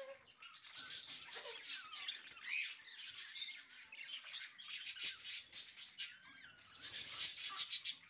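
Budgerigars chattering and warbling: a continuous stream of short chirps, squeaks and squawks with quick clicky notes.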